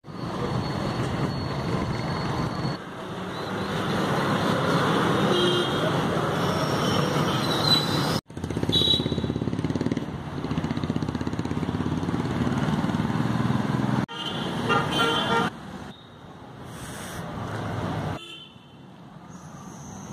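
Street traffic noise with motor vehicles running and horns honking now and then. The sound changes abruptly about three times, like separate recordings joined together.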